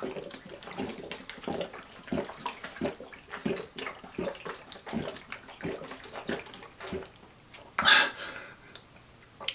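A person gulping liquid down fast from a plastic bottle, swallow after swallow at about two a second, then a loud breath near the end as the bottle comes down.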